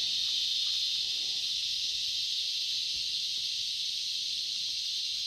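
A steady, high-pitched chorus of insects, even and unbroken.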